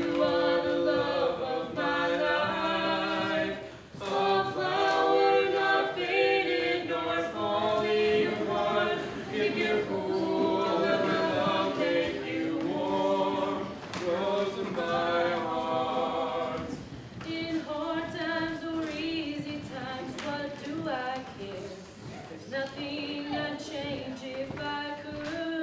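A vocal group singing a cappella: several voices in close harmony, in phrases with short breaths between them, one brief dip about four seconds in.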